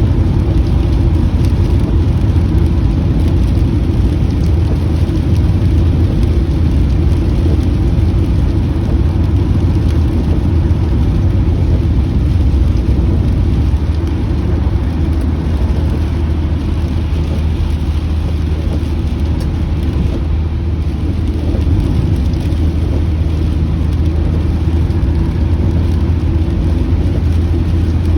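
Steady low road and engine rumble heard from inside a moving car, with rain hissing on the car.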